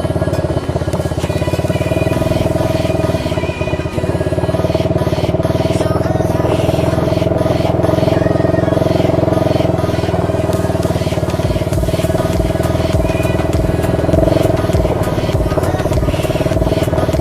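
A 125cc ATV engine running while riding, with background music over it that has a steady beat coming in over the second half.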